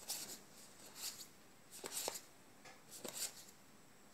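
Magic: The Gathering cards sliding against one another as a hand flips through a booster stack, one card at a time: four soft swishes about a second apart.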